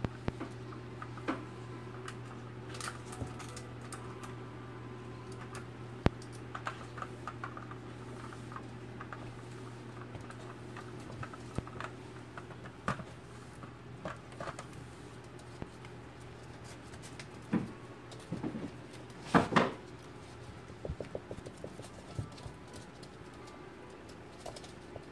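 Jack Russell terrier puppies' paws and claws pattering and tapping on a wooden floor as they rummage and knock about toys and books, in irregular small clicks. A brief louder noise stands out about two-thirds of the way through, over a steady low hum.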